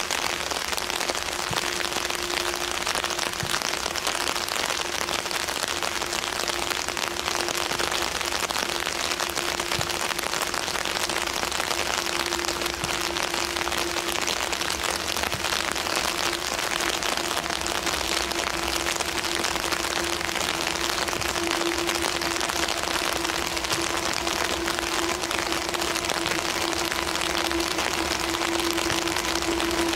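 Steady rain hiss, with a steady low hum that grows louder over the second half as a freight train approaches through the tunnel.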